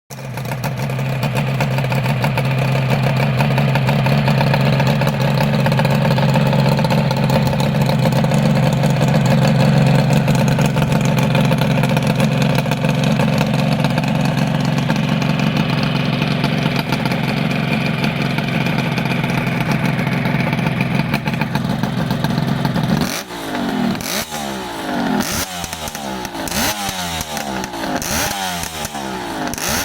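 Kawasaki 250SS (S1) air-cooled two-stroke triple breathing through Rooney expansion chambers and steel silencers, running steadily at idle. About three-quarters of the way through it is blipped, a string of short revs rising and falling about once a second.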